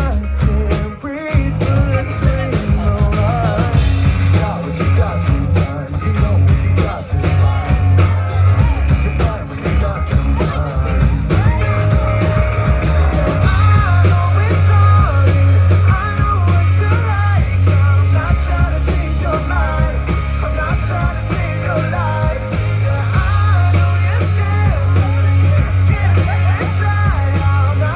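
Live rock band playing loud, with heavy bass, guitar, drums and a singer.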